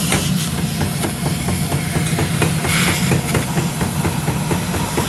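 Gas cutting torch hissing steadily as its flame plays on red-hot steel, throwing sparks. A steady low hum and a rapid ticking, about six a second, run underneath.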